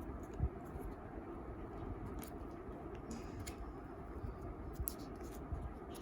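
Faint handling of parcel packaging: a few light clicks and scrapes at irregular moments over a steady low room hum.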